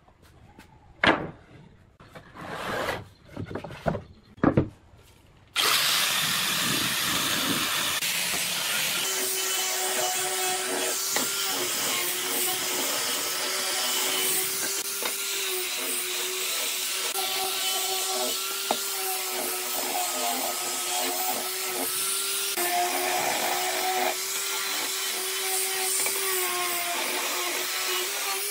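A few separate knocks in the first five seconds, then an electric angle grinder with a sanding disc sanding a pine board: a steady motor whine over the rasp of the disc on the wood, which starts about six seconds in.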